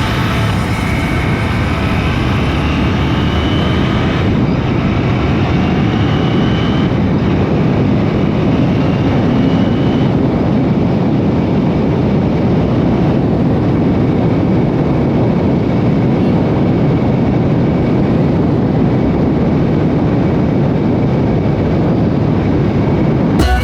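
Royal Enfield Continental GT 650's parallel-twin engine running at road speed under heavy wind rush over the microphone, the engine note rising a few times in the first ten seconds.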